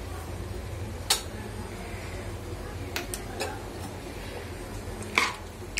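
A few light clinks of a metal spoon against the aluminium pressure cooker pot, as salt is added to the simmering chicken gravy, over a low steady hum.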